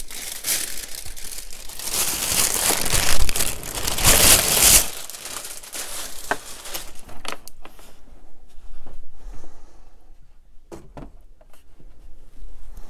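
Plastic packaging crinkling and rustling while parts are pulled out of a box, dense for about the first five seconds, then softer rustles with a few light clicks and knocks.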